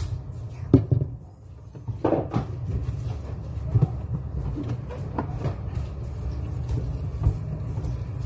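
A few light knocks and clatters of a bottle and other things handled and set down on a table, over a steady low rumble.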